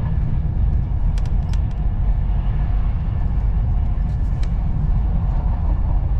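Steady low rumble of a passenger train running at speed, heard from inside the coach, with a few faint clicks about a second in and again past the middle.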